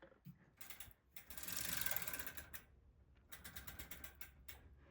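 Bicycle drivetrain turned by hand: the chain running over the sprockets with a rushing whir in the middle, then the rear freewheel's ratchet clicking in a quick, even run near the end.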